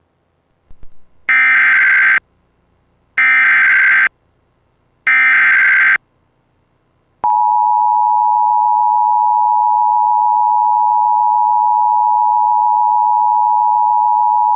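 Emergency Alert System tones. Three identical short bursts of the SAME digital header, a harsh data screech about two seconds apart, encode the severe thunderstorm warning. About seven seconds in, the steady two-tone EAS attention signal starts and holds for about eight seconds.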